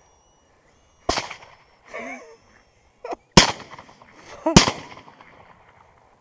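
Three sharp suppressed rifle shots, about one, three and a half and four and a half seconds in, each with a short fading tail, and a fainter click just before the second. A brief wavering call sounds between the first and second shots.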